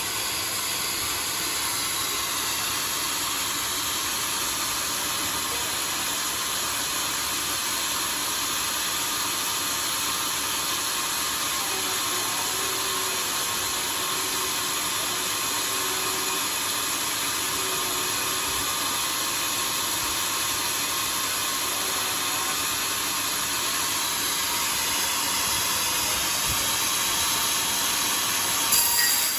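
Homemade sawmill saw cutting steadily through a log, a continuous hissing rasp of the blade in the wood, with a short sharp knock just before the end.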